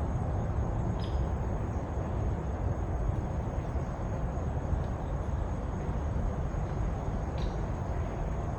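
Steady outdoor background rumble with no clear source, with a couple of faint clicks about a second in and near the end.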